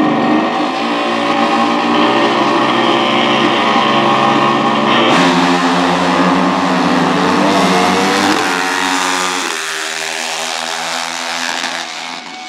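Drag-racing dirt bike engines running hard at high revs. The sound changes abruptly about five seconds in and again near nine and a half seconds, with a short rise in pitch just before the second change.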